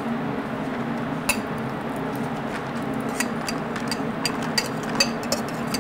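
Metal spoon tapping and scraping against an enamel bowl while serving out rice: a scatter of light clinks over a steady low hum.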